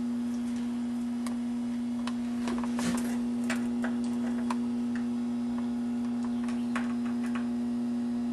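A steady electrical hum at a single pitch, with scattered light clicks and taps as multimeter probes are handled at the terminals of an open breaker panel.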